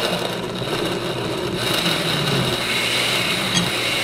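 Countertop electric blender switching on abruptly and running steadily, pureeing raw tomatoes with garlic, onion and salt for a caldo broth.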